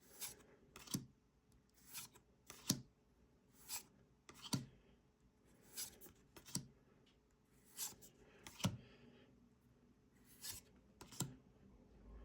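Pokémon trading cards being flicked through one at a time from a freshly opened booster pack. Each card moved to the back of the stack makes a sharp snap or click, about once a second and often in pairs.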